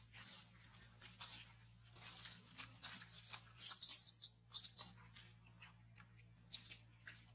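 Dry leaf litter rustling and crunching under moving macaques: a string of short scuffs, loudest near the middle.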